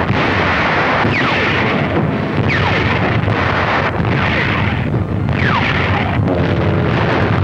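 Artillery barrage on a WWII newsreel soundtrack: a continuous din of gunfire and explosions, with about four steeply falling shell whistles cutting through it.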